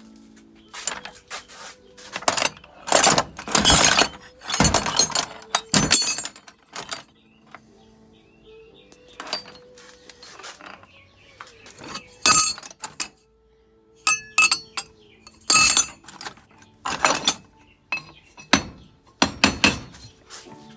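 Metal scrap offcuts clanking and clinking against each other as they are rummaged through and lifted out of a box. There are irregular clusters of sharp, ringing strikes, the loudest a few seconds in.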